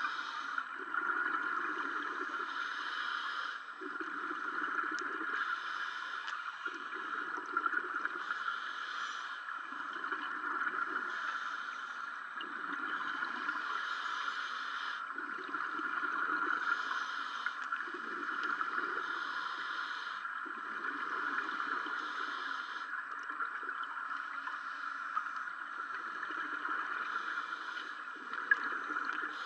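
A scuba diver breathing through a regulator underwater: a hiss on each inhale alternating with a low bubbling gurgle on each exhale, about one breath every three seconds, over a steady hiss.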